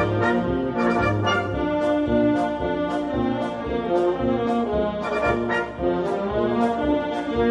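Maltese wind band playing a lively festa march (marċ brijuż), with the brass carrying the tune over a steady drum and cymbal beat.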